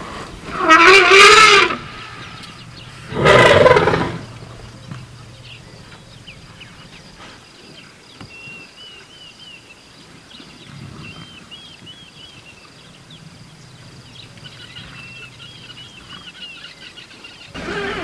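African bush elephant trumpeting loudly twice in the first few seconds: a long wavering call, then a shorter, harsher blast. It is the trumpet of an agitated elephant.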